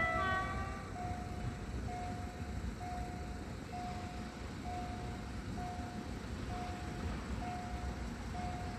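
Level crossing warning signal sounding a single steady electronic beep about once a second, the alarm that a train is approaching and the crossing is closed. A short burst of higher tones overlaps the first beep.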